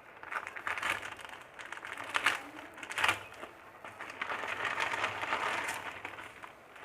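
Packaging of a clip-on lavalier microphone being opened and handled: irregular rustling with a few sharp clicks.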